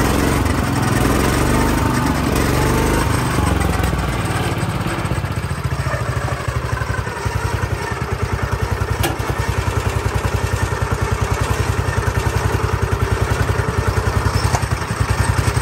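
Ford LGT 100 garden tractor's engine running, heavier and uneven for the first few seconds, then settling into an even idle with a steady, rapid pulsing beat about six seconds in. A single sharp click about nine seconds in.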